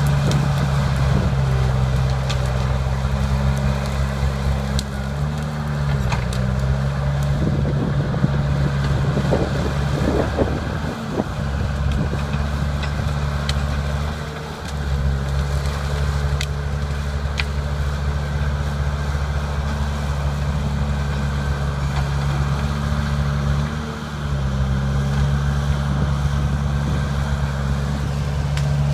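Diesel engine of a small crawler bulldozer running hard while it pushes into a large cedar tree. The engine note dips briefly three times as it takes load. There is cracking of branches about a third of the way in.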